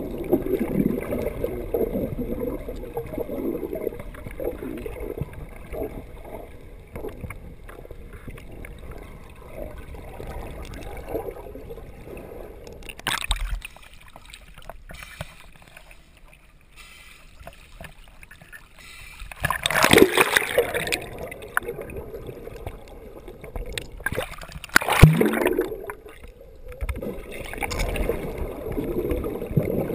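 Water sloshing and gurgling around a swimmer's camera in the sea, with three louder bursts of rushing water: about halfway through, about two-thirds through and near 25 seconds in.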